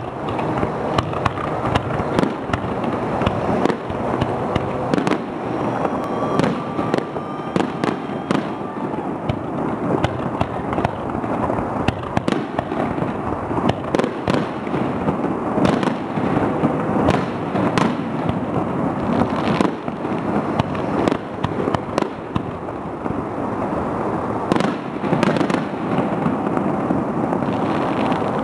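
Aerial fireworks display: many shells bursting in quick succession with sharp bangs, over a steady wash of crackling and echoing rumble between them.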